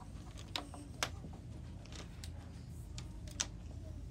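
Scattered light clicks and taps, about eight at irregular spacing, over low room noise, from children handling markers and pencils at a table.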